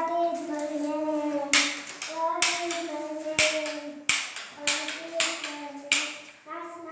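Children singing a held, drawn-out tune while hands clap along at a steady beat, a little under two claps a second, from about a second and a half in.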